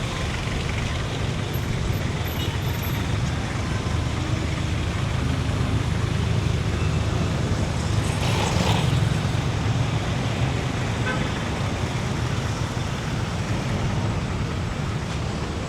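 Steady city street traffic: engines of passing and idling vehicles rumbling together, with one vehicle passing louder about halfway through.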